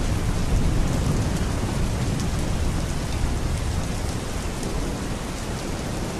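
Steady rain with a continuous low rumble of thunder underneath.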